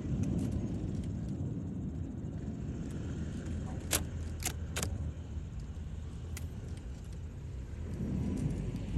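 New Year's Eve fireworks: a steady low rumble of bursts, with three sharp crackling pops about halfway through.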